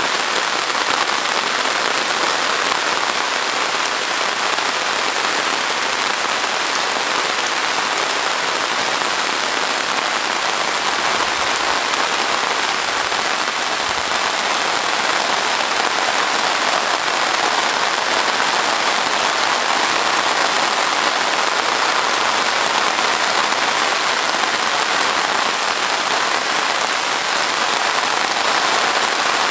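Heavy rain falling steadily on leaves, grass and a tarmac road: a dense, even hiss that holds at one level throughout.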